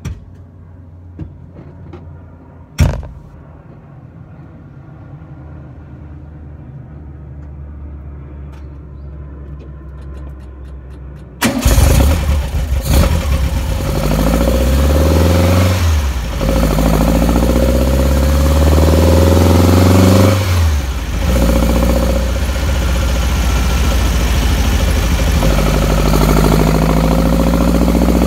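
A sharp thump about three seconds in. About eleven seconds in, a 2007cc air-cooled VW flat-four starts and runs loud, heard right beside its Weber 48 IDA carburettors' velocity stacks. Its revs climb and drop twice, then settle.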